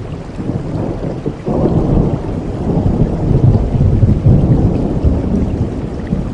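Thunder rumbling low over steady rain, the rumble swelling suddenly about a second and a half in and rolling on.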